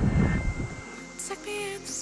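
Wind buffeting the microphone as a low rumble, cut off abruptly under a second in; background music then starts, with steady held notes and a short stepping melody.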